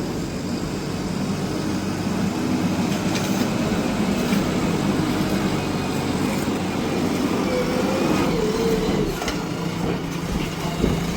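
JCB backhoe loader's diesel engine running steadily, with a few short knocks.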